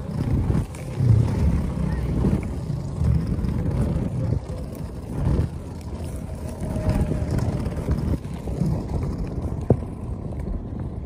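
Outdoor roadside ambience: a low, uneven rumble of wind buffeting the microphone mixed with road traffic, with one short click near the end.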